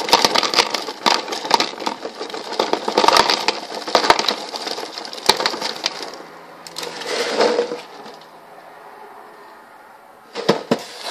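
Frosted Mini-Wheats biscuits pouring from the box into a bowl: a dense clatter of pieces rattling and dropping for about six seconds, a shorter burst about a second later, then a couple of knocks near the end.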